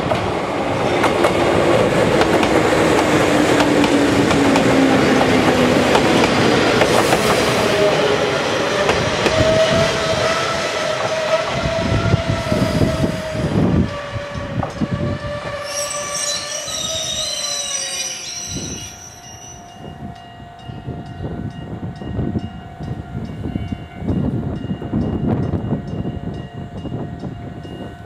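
Izuhakone Railway 1300 series electric train (ex-Seibu New 101 series) arriving and braking to a stop: motor and gear whine falling in pitch as it slows, wheels knocking over rail joints, then a high brake squeal for a few seconds about two-thirds of the way through. After it stops, a quieter steady hum from the standing train.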